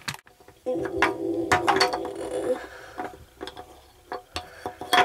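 Small clicks and taps of plastic toy figures and toy furniture being handled and set down. A steady pitched hum runs for about two seconds, starting about a second in.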